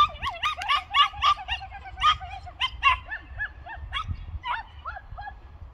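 Small dog barking in quick, high-pitched yips, several a second, thinning out after about three seconds, over a low rumble of wind on the microphone.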